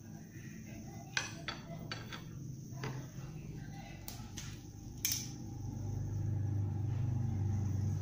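Light clinks and taps of a metal ruler being handled and laid against a wooden branch on a wooden workbench, several in the first five seconds. A low steady rumble swells from a little past halfway and becomes the loudest sound.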